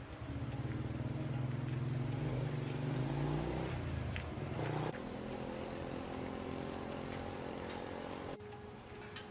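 Small motorbike engine running and being revved for the first few seconds, then running steadily at a lower level; the sound cuts off abruptly near the end.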